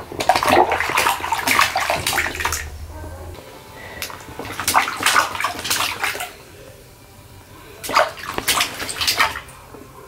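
A baby splashing bathwater with her hands in a small inflatable tub, in three bouts of splashing with quieter gaps between them.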